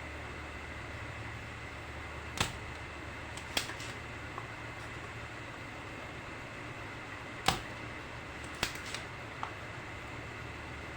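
Handful of sharp clicks and taps from tools working on a power amplifier's capacitor filter board as its solder pads are cleaned. The loudest click comes about seven and a half seconds in, over a steady low hum.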